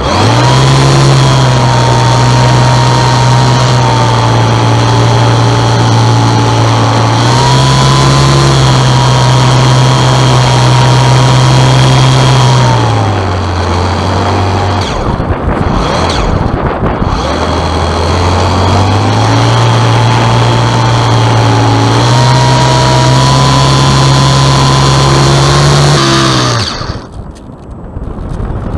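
Radio-controlled Piper Cub model's motor and propeller running under power, a steady drone with a higher whine above it. It steps up and down in pitch with the throttle, drops back for a few seconds in the middle, climbs again, and cuts off about 26 seconds in, leaving only air rushing past as the plane glides.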